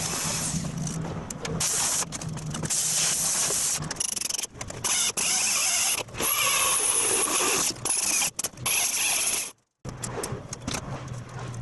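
Arc welding on stainless steel brackets: a crackling hiss in a string of short tack welds, each lasting about half a second to a second and a half, with brief pauses between them. It cuts off suddenly about nine and a half seconds in.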